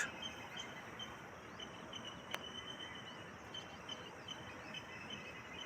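Faint nature ambience: insects and birds chirping over a soft hiss, with short high chirps repeating several times a second. A single sharp click comes about two seconds in.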